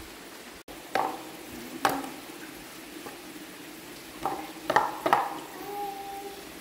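Hands rubbing seasoning into raw pork in a metal frying pan, with about five sharp knocks and clatters of the pan, the loudest about five seconds in.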